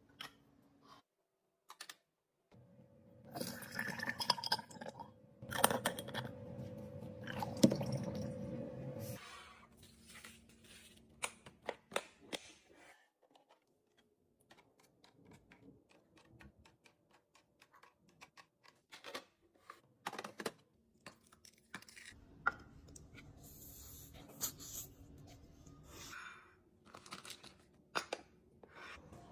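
Food packages and plastic containers being handled while a refrigerator is organized: scattered clicks and knocks of items being set down, with two longer stretches of rustling and crinkling, the first about three seconds in and the second in the last third.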